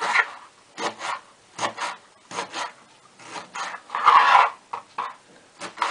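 Kitchen knife cutting through aubergine onto a cutting board, dicing the slices into cubes: short rasping strokes, often in pairs, a little under a second apart, with a longer, louder cut about four seconds in.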